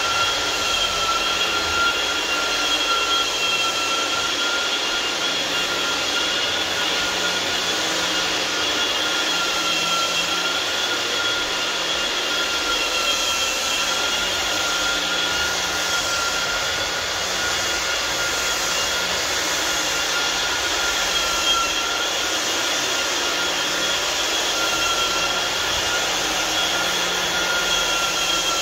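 Vacuum dust extractor running steadily with a high, even whine over a rushing hiss.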